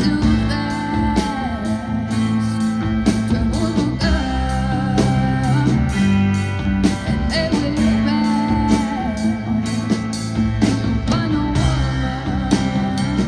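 Rock band playing, with guitar and a steady drum beat under a held, wavering melody line.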